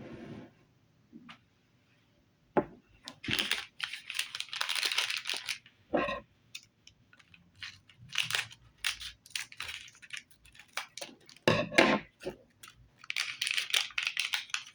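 Plastic toy packaging crinkling and tearing in hand as a small wrapped accessory is unwrapped, in repeated rustling bursts broken by a few sharp knocks and clicks.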